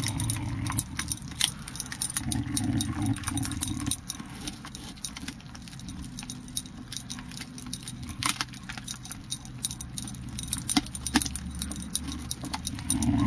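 A dog's metal collar tag and ring jingling in rapid, irregular clicks, busiest in the first few seconds, over a low steady rumble.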